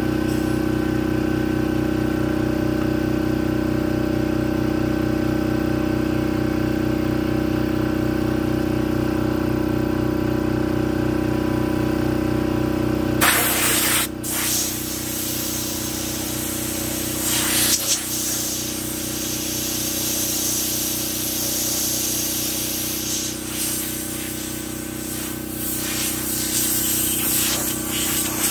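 McGraw 21-gallon oil-free air compressor running with a steady hum. About halfway through, compressed air starts hissing loudly out of the air line, breaks off for a moment, then keeps blowing with small surges.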